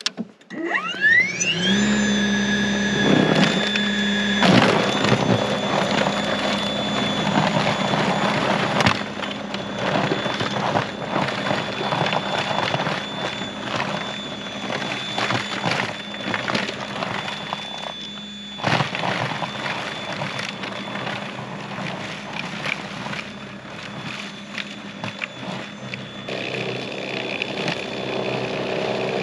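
Greenworks 80V battery-powered snowblower's electric motor spinning up with a rising whine about a second in, then running steadily with a high whine while its auger throws light snow.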